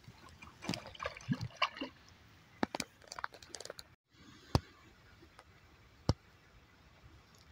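Faint outdoor background noise with scattered sharp taps close to the microphone. Three louder single taps stand out in the second half, about a second and a half apart.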